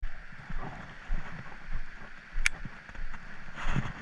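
Wind rumble and handling bumps on a body-worn camera's microphone, with one brief sharp high click about two and a half seconds in.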